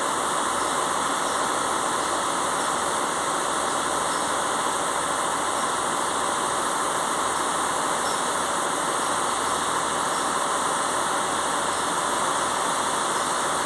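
Diesel engines of a Class 168 Turbostar diesel multiple unit running steadily, a constant even noise with no change in pitch or level.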